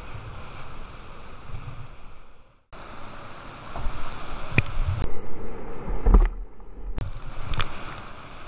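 Whitewater rapids rushing around a kayak, heard close up, with splashes striking the camera. For about two seconds in the middle the sound turns muffled and boomy, as water washes over the camera.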